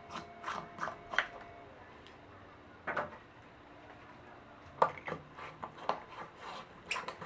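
Handling noise: scattered light clicks and knocks, a quick run of them in the first second or so, one at about three seconds and several more between about five and seven seconds.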